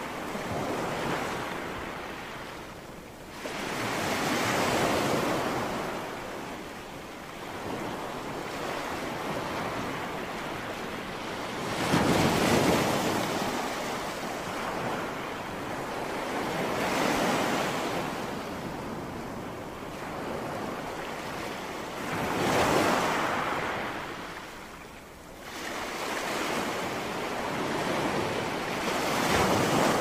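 Sea waves washing in and breaking over low shoreline rocks, a steady wash of surf that swells with each breaking wave every few seconds, loudest about twelve seconds in and again near the end.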